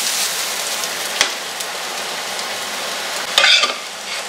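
Salmon fillet and chopped onion sizzling steadily in a frying pan, with a sharp knock about a second in and a short, louder clatter of cookware near the end.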